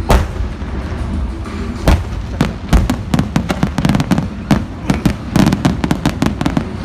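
Fireworks shells bursting: a loud bang right at the start and another about two seconds in, then a rapid run of bangs and crackles through the middle that thins out near the end.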